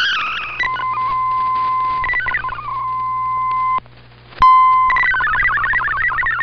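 Shortwave digital-mode data signal from a radio receiver. The warbling MFSK data tones stop and a steady single beep-like tone holds, breaking off briefly near four seconds. It returns, and rapid hopping data tones start up again about five seconds in, marking a change of digital mode.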